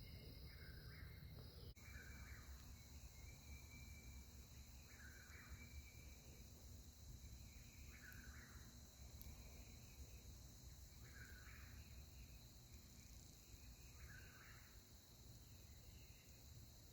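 Faint animal call, each about half a second long, repeated about every three seconds over a steady high-pitched hum.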